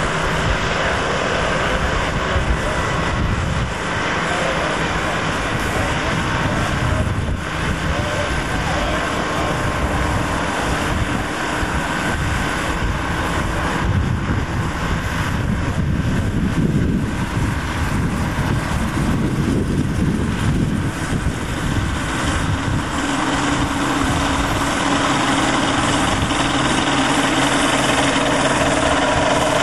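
Light biplane's Rotax 912 engine and propeller running as the plane taxis on grass. The sound is rough and uneven at first, then settles into a steady drone in the last few seconds.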